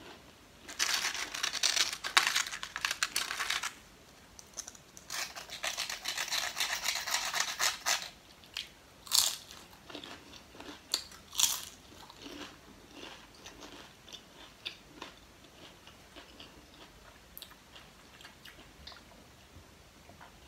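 Lay's potato chips crunching as they are bitten and chewed. There are two long, dense runs of crunching, then a few sharp single crunches, then quieter chewing near the end.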